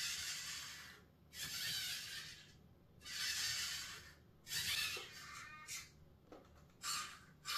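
RC car steering servo whirring in repeated bursts about a second long as it turns the front wheels back and forth.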